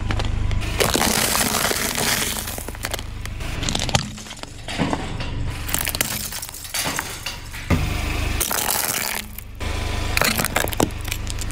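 Car tyres rolling over and crushing small objects, in several short cuts: crunching, cracking and crackling as snack tubs and a tin toy house are flattened, over a steady low drone.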